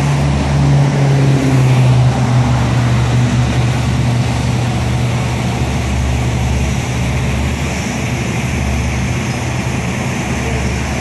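Heavy-equipment engines running with a steady low hum, a little louder in the first couple of seconds, under a broad rushing noise.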